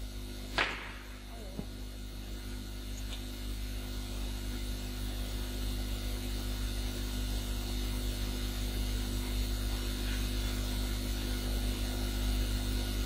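Steady electrical mains hum with faint background hiss, growing slightly louder over the stretch, with one short click about half a second in.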